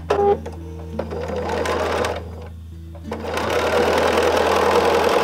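Sewing machine stitching in two runs: a short one about a second in, and a longer one from about three seconds in.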